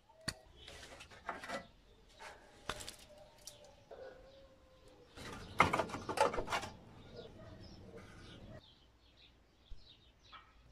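Metal clinks, knocks and scrapes of hand tools and parts as a rusty Honda lawn mower engine is taken apart. The loudest is a clattering scrape about five to seven seconds in, as the sheet-metal engine shroud is lifted off.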